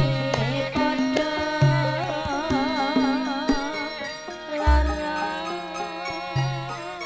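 Javanese gamelan music for tayub: a kendang drum plays repeated low strokes under ringing metallophone notes. A wavering high melodic line comes in about two seconds in, and there is one deep low stroke a little past the middle.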